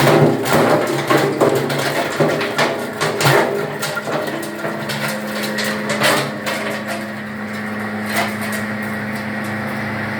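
Wood crusher machine running with a steady hum while wood is fed through it, giving rapid cracking and knocking for about the first six seconds; the knocks then die away and the machine runs on steadily, with one more knock near the end.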